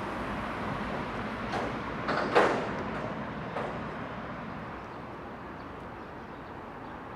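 Steady rushing background noise with a short, louder swish about two and a half seconds in, then easing off slowly.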